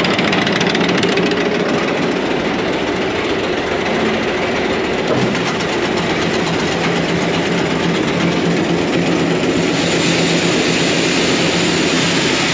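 Electric screw-conveyor grain auger running steadily, its three-phase motor and spinning screw making an even mechanical noise that grows hissier about ten seconds in. The screw is turning backwards because two phase wires are swapped, so it runs but carries no grain.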